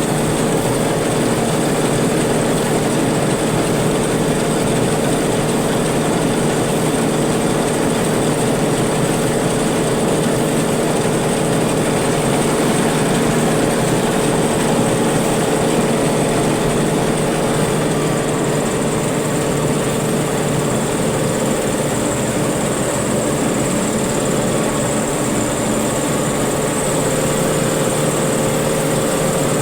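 Maxxi Bimo 102L rice combine harvester running steadily while harvesting, a loud constant machine drone with a steady hum.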